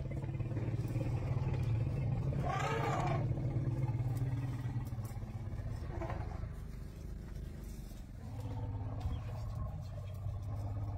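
Elephants calling: a loud roar that rises and falls about three seconds in, and a shorter, weaker call around six seconds, over a steady low drone.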